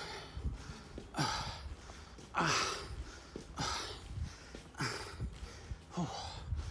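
A person breathing heavily close to the microphone, one breath about every second or so in a steady rhythm.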